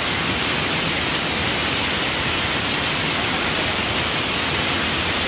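A steady, even rush of water from a curtain of water pouring into an indoor water park pool.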